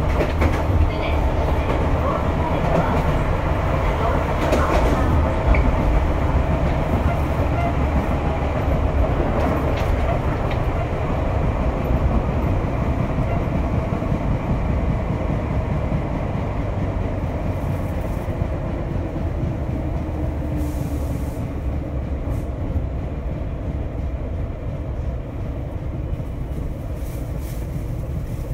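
Inside a Tobu 8000-series electric train's motor car: a steady rumble of traction motors and wheels on the rails, with a whine that fades over the first ten seconds or so. The running sound eases slightly toward the end.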